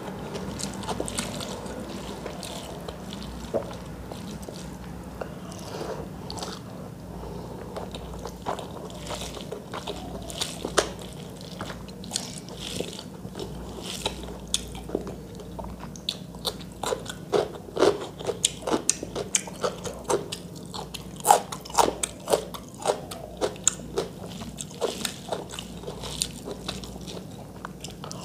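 Close-miked chewing and mouth sounds of someone eating rice and chicken curry by hand, with many short, wet clicks and smacks that come thicker and louder in the second half. Fingers mix the soft rice and curry on the plate.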